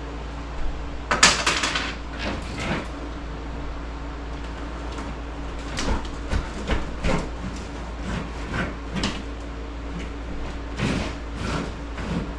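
Irregular knocks and clatters of hard objects being handled, the loudest cluster about a second in, over a steady fan hum.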